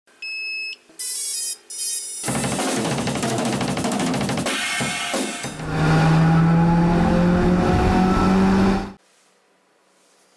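Intro music: three short electronic tones, then a drum-kit passage with cymbals, ending on a held low note that cuts off suddenly about nine seconds in.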